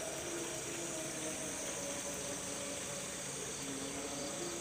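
Steady chorus of insects such as crickets, a constant high hiss with a few faint steady lower tones running under it.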